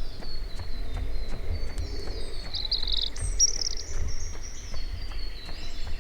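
Songbirds chirping and calling, with a fast trill about halfway through, over a steady low rumble.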